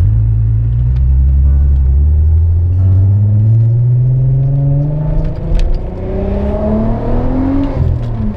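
Mk4 Volkswagen Jetta's engine and loud exhaust accelerating, the pitch rising steadily through one long pull, then backing off near the end.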